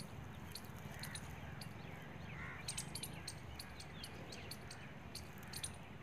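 Marsh ambience: faint, scattered bird chirps from wild waterbirds and short high ticks over a low steady rumble.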